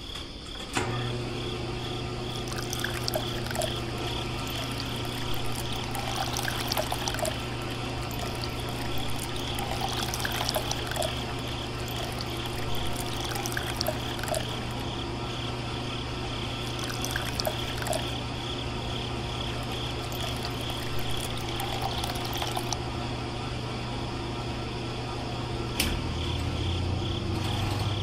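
Small electric water pump switched on about a second in and humming steadily, with water pouring and trickling out of a plastic pipe into a sand channel.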